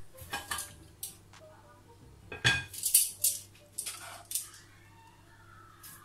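Metal kitchen utensils clinking and clattering against cookware while the stir-fried morning glory is served: a run of short knocks and clinks, the loudest about two and a half to three seconds in.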